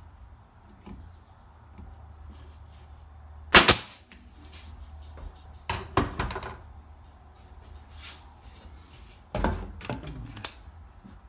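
A nail gun firing nails to join the wooden sides of a box: one sharp, loud shot about a third of the way in, two more close together near the middle and another near the end, with lighter knocks from handling the boards between.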